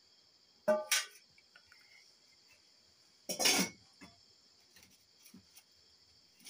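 Steel kitchenware clanking twice about a second in, a louder clatter a few seconds later as a lid goes onto a cooking pot, then a few small knocks of firewood being pushed into a clay stove. A steady chorus of insects chirrs throughout.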